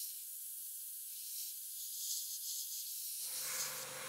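Airbrush spraying lacquer-based flat varnish: a steady hiss of air and atomised paint.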